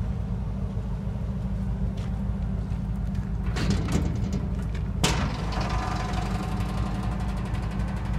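Steel service-body rear door being opened: a rattle of latch clicks about three and a half seconds in, then one sharp metal clank about five seconds in as it comes open, over a steady low rumble.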